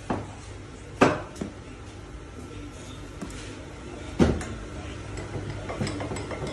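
Sharp knocks and clatter as a stack of card sheets is pushed and squared against the steel table and back fence of a paper guillotine: three hard knocks, about a second apart and then three seconds later, with lighter taps between. A steady machine noise grows a little louder near the end.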